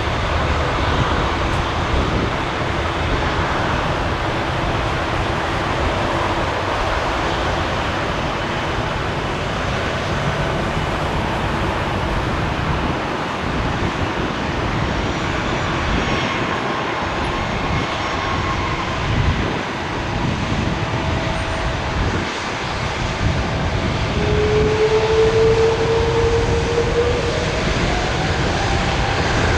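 Hawaiian Airlines Airbus A330-300 jet airliner on landing, its engines giving a steady, continuous jet noise over a fluctuating low rumble. A whine rises in pitch near the end.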